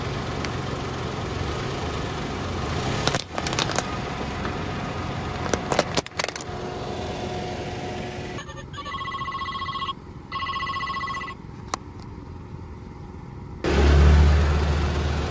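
Car engine idling as the tyre presses on plastic clothespins, with sharp cracks and clicks twice. Then an electronic toy phone ringtone beeps in two bursts. Near the end the car's engine surges loudly as it pulls forward.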